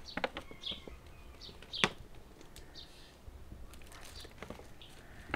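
Quiet background with a few faint, short bird chirps and scattered light clicks, the sharpest click about two seconds in.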